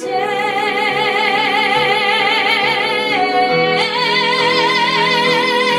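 Song: a female voice holds long notes with a wide vibrato over instrumental accompaniment, moving up to a higher sustained note about two-thirds of the way through.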